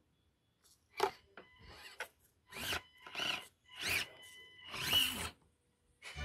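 Small electric RC crawler truck driving in short throttle bursts, its motor and gears whining about six times, each burst rising and falling in pitch.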